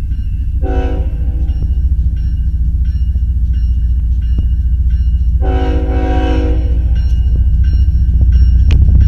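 BNSF diesel freight locomotive sounding its horn for a grade crossing: a short blast about half a second in and a longer one about five seconds in. Under the horn, the engine's low rumble grows louder as the train approaches, and a crossing bell rings faintly.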